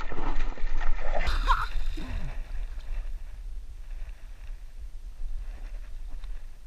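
A hooked pike leaping and thrashing at the water's surface, splashing loudly for the first couple of seconds, then quieter water movement.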